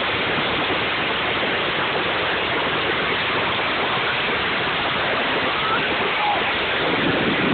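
Steady rushing noise of a bucket sliding fast over snow, the phone held close to the snow as it streaks past.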